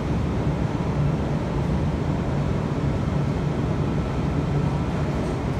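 NSW TrainLink V set double-deck electric train rolling slowly alongside the platform: a steady rumble with a low hum and no separate knocks or horn.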